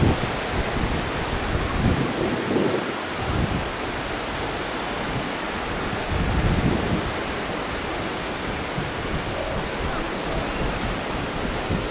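Steady outdoor rushing noise of wind on the microphone with sea surf, with low buffeting gusts near the start, about two to three and a half seconds in, and again around six and a half seconds.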